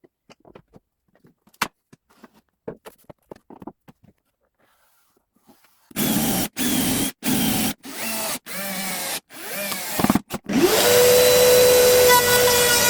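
Faint clicks and taps, then a handheld electric power tool triggered in about six short bursts. Near the end it spins up, its whine rising and then settling into a steady run.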